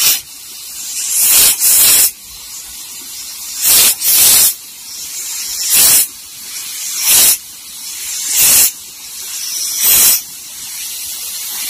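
Crisp, wet lettuce leaves crinkling and rustling close up as hands fold and press them, in about eight short crackly bursts over a softer steady rustle.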